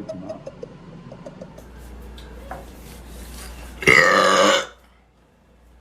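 A girl's loud burp, once and under a second long, about four seconds in.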